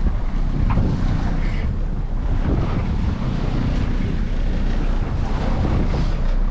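Strong wind blowing across the microphone over the sound of the sea and waves around a boat at sea.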